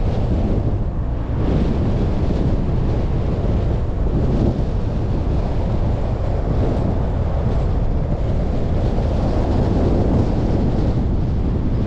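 Steady low rumble of a car driving along a road: tyre and road noise mixed with wind buffeting the microphone.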